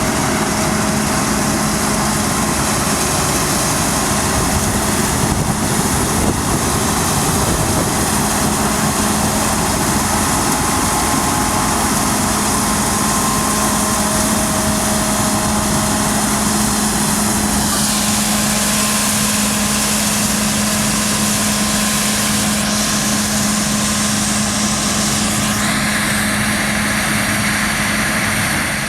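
Claas Lexion 7600 combine harvester running steadily while cutting beans: a constant engine hum with several high whines from the machine. About two-thirds of the way through the upper whines drop away, and a new, higher whine comes in near the end.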